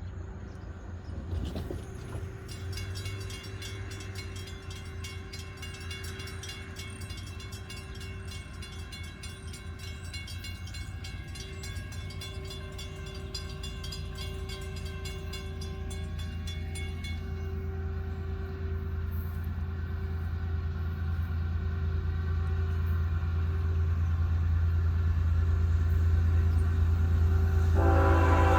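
Freight train's diesel locomotives approaching: a steady low engine rumble that grows louder throughout. A multi-tone horn starts to blow near the end.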